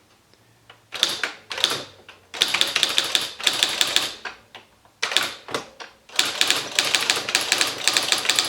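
Esselte 80 electric typewriter typing: quick runs of sharp key strikes in bursts with short pauses, starting about a second in.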